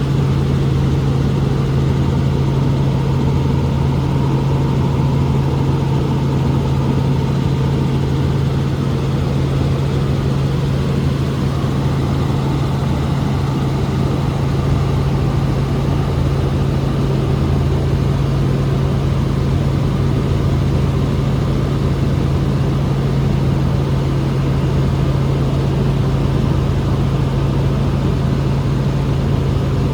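Helicopter in flight heard from inside the cabin: a loud, steady drone with a strong low hum that holds unchanged throughout.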